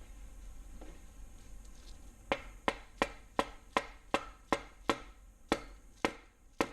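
About a dozen sharp, evenly spaced taps, roughly three a second, starting about two seconds in: a tool tapping the LS engine's number 3 main bearing cap down to seat it on the block.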